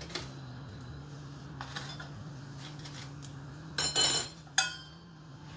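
Metal kitchenware clanking: a loud clatter with a ringing tail about four seconds in, then a single ringing clink half a second later, over a low steady hum. A few faint taps come earlier.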